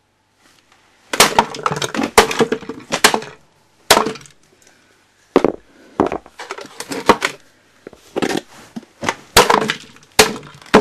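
Repeated knocking, clattering and rattling of the plastic subwoofer housing and tools, with sharp clicks in bunches, as the speaker is worked out of the cabinet.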